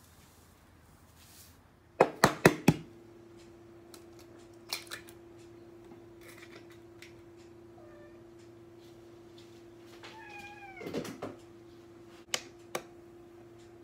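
A domestic cat meows once, a short call about ten seconds in. Earlier, four loud sharp knocks come in quick succession, followed by a steady low hum, and two light clicks come near the end.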